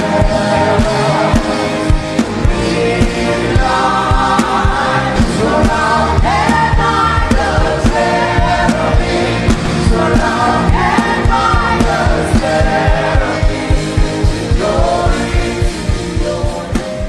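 Gospel worship music: voices singing over a band with a steady drum beat, fading out near the end.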